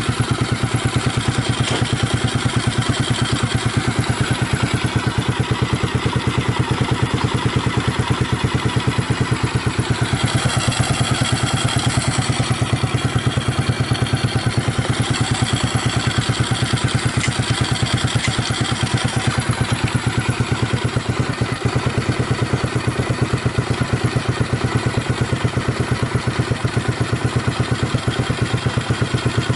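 Honda GB250 Clubman's air-cooled single-cylinder four-stroke engine idling steadily through an aftermarket Peyton Place muffler, a fast, even run of exhaust pulses. The seller reports no abnormal noises from the engine.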